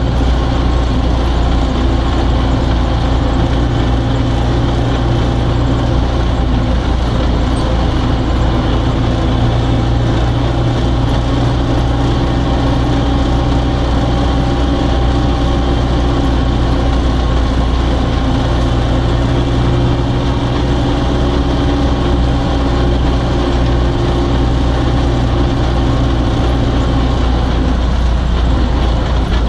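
MTZ-80 tractor's four-cylinder diesel engine running steadily while pulling two trailers, heard from inside the cab. The engine note shifts slightly near the end.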